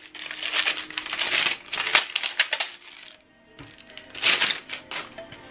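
Plastic packing film and wrapping being handled and crumpled by hand, a dense irregular crinkling rustle that pauses about three seconds in and then comes back in another burst. Faint background music runs underneath.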